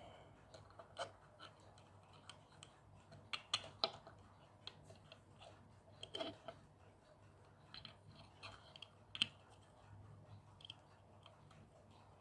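Faint, irregular small clicks and taps of fingers handling a small 3D-printed plastic pulse motor frame and its magnet-studded rotor disc, with a faint steady low hum underneath.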